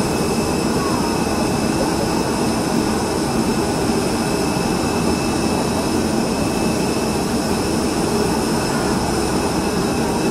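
Steady jet engine roar from a four-engined Airbus A380 landing and rolling out on the runway.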